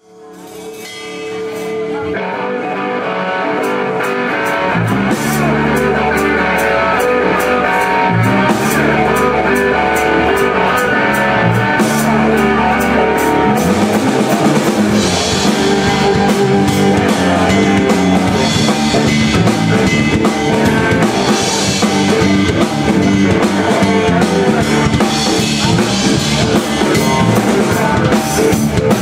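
Live blues-rock band playing: electric guitars over a drum kit with steady cymbal work. The music fades in over the first couple of seconds, then stays loud.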